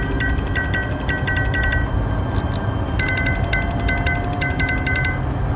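Smartphone ringtone for an incoming call: a quick repeating figure of short high notes, played in two bursts with a pause of about a second between them, over a steady low rumble.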